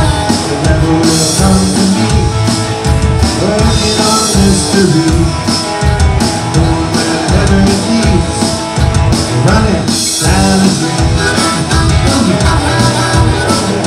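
Live rock band playing: electric guitars and a drum kit with a lead vocal line.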